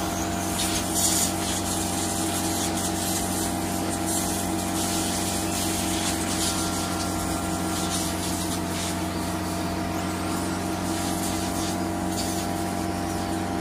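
A steady machine hum with a loud hiss over it, unchanging in pitch and level.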